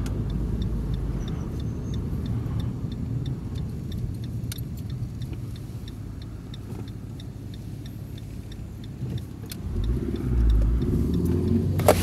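Car cabin noise while driving: a steady low engine and road rumble that swells louder about ten seconds in, with a sharp knock just before the end. Faint rapid high ticks run through the first half.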